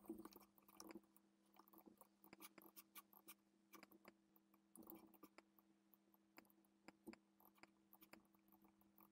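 Near silence: faint room tone with a low steady hum and scattered faint clicks.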